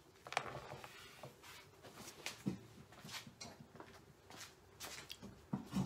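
Scattered light clicks and knocks as tools and a plastic fuel module are handled on a workbench, about half a dozen small sharp sounds spread out over a faint background.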